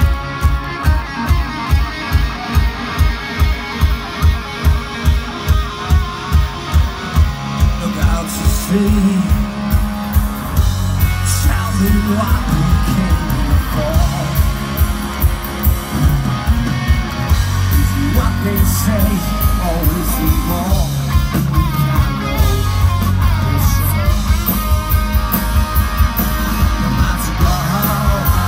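Live rock band with electric guitars, bass, drums and singing, played through outdoor stage speakers. A steady driving beat leads at first, and about eleven seconds in the full band comes in louder, with bass.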